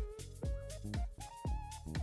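Background music with a steady electronic beat: a low kick drum about twice a second under a simple synth melody.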